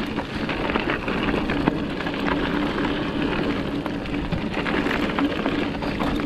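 Mountain bike riding down a rough dirt singletrack: tyres on dirt and loose debris giving a constant rattle with many small knocks over bumps, under a steady low hum.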